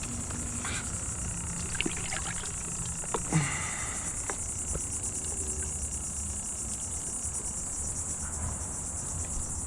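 Steady high-pitched chorus of insects over a low rumble, with a few light clicks about two seconds in and one sharp knock a little over three seconds in.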